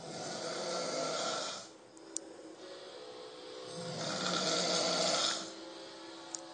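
A drunk man in a deep sleep snoring loudly: two long, rasping snores about four seconds apart, with a quieter breath between them.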